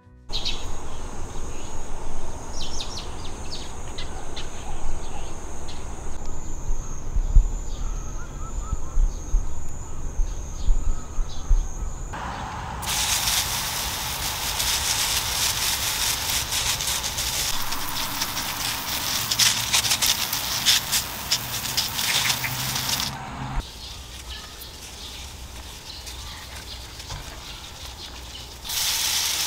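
A garden sprayer's wand spraying liquid onto plants, a loud steady hiss that stops about two-thirds of the way in and starts again near the end. Before the spraying, outdoor garden ambience with a high steady insect buzz.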